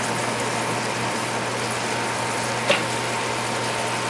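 White wine simmering and reducing in a pan around browned chicken pieces, onions and peppers, a steady sizzling hiss. One short click about two and a half seconds in.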